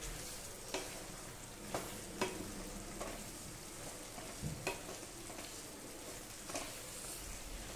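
Spatula stirring boiled chickpeas into sizzling masala in a kadai: a steady sizzle with irregular scrapes and taps of the spatula against the pan.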